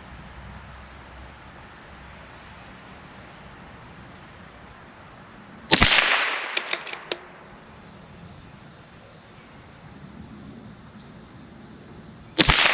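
Two shots from a CZ 457 bolt-action .22LR rifle firing supersonic SK High Velocity ammunition, about seven seconds apart. Each is a sharp crack followed by a fading echo, and a few light clicks follow the first shot.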